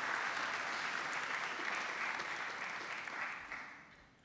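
Audience applauding in steady clapping that dies away in the last second.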